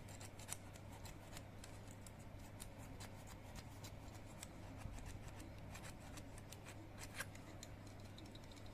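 Faint scraping and scattered small clicks of a drill bit being twisted by hand inside a Zippo lighter's flint tube, grinding away old flint that has hardened and clogged it. A steady low hum runs underneath.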